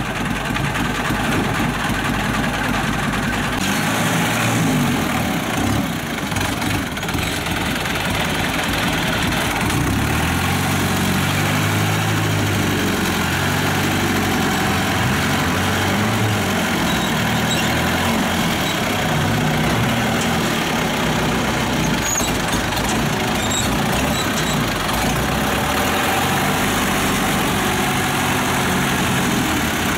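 Kubota combine harvester's diesel engine running under load, its pitch rising and falling repeatedly from about ten seconds in as the engine speed changes.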